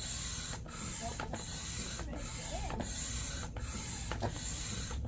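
Manual air pump being worked steadily to inflate an inflatable kayak, a hiss of air with each stroke repeating about every 0.7 seconds.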